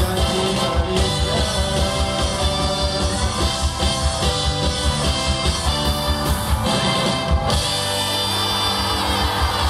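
Live rock music from a band with electric guitar and a drum kit keeping a steady beat, backed by an orchestra, heard from among the audience.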